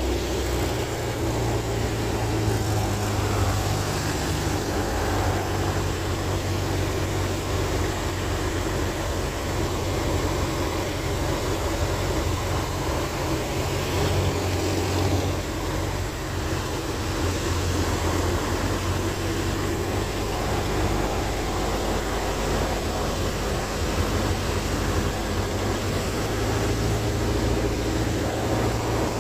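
Van's RV-4 light aircraft's piston engine and propeller running steadily in flight, a constant low drone heard from inside the cockpit.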